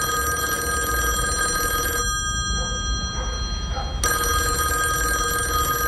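Electronic ringing tone: a steady shrill tone held for about two seconds, stopping for about two seconds, then sounding again, over a low hum.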